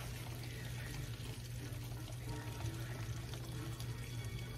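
Flour-coated chicken pieces frying in a skillet of oil: a steady sizzle, with a steady low hum underneath.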